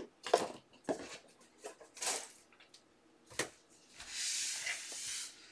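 A few short knocks and rustles of things being handled on a tabletop, then a cloth wiping across the table in a steady swish for about a second and a half near the end.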